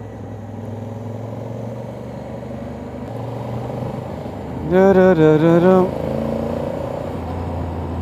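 Honda Africa Twin motorcycle's parallel-twin engine running steadily under way, a low continuous drone. About five seconds in, a voice sounds briefly for around a second over it.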